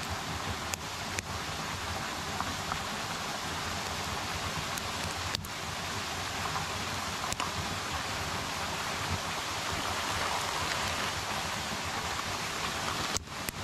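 Steady rushing of running water. A few light clicks of a metal spoon against a camp pot, spreading sauce.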